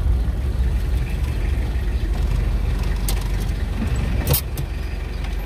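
Steady low rumble of a running motor vehicle engine, with a couple of sharp clicks about three and four seconds in.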